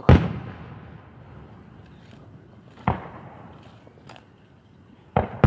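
Aerial fireworks shells bursting: a loud boom at the start that dies away over about a second, a weaker bang about three seconds in, and another loud boom near the end.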